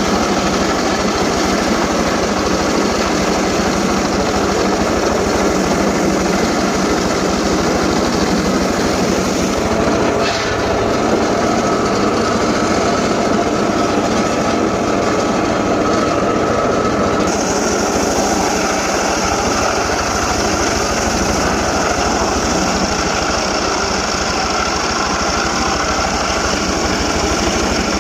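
Stihl two-stroke chainsaw running steadily at high revs, the sound growing brighter and hissier about two-thirds of the way through.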